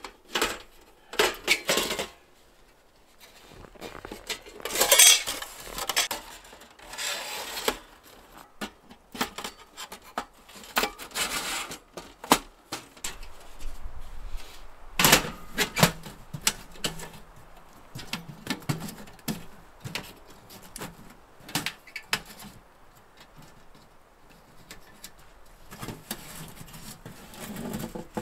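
Sheet-metal panels of a folding wood stove clinking, clanking and scraping as the stove is unfolded and assembled by hand. Irregular knocks come with a few longer scrapes and quiet gaps between.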